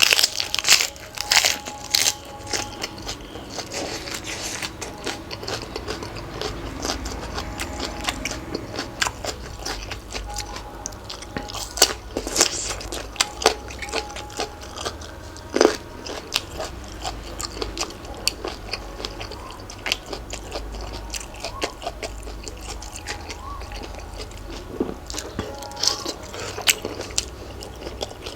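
Close-up biting and chewing of crunchy food, a spicy Thai salad of cuttlefish and shrimp with raw vegetables, with irregular sharp crunches.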